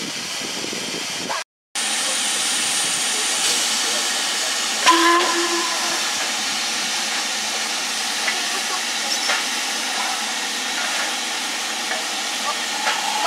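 LMS Jubilee class 4-6-0 steam locomotive 45690 Leander hissing steadily with escaping steam, with a short pitched tone about five seconds in. The sound cuts out for a moment just over a second in.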